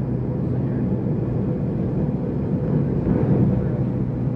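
Cabin noise inside a McDonnell Douglas MD-83 in flight: a steady rush of airflow and engine noise from its rear-mounted Pratt & Whitney JT8D turbofans, with a constant low hum.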